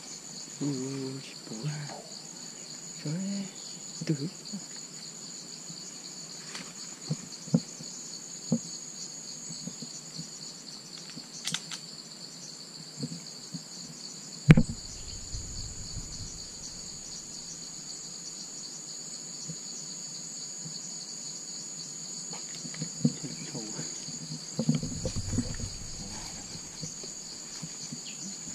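Steady high-pitched insect chorus, with one sharp rifle shot about halfway through. Rustling footsteps through undergrowth near the end.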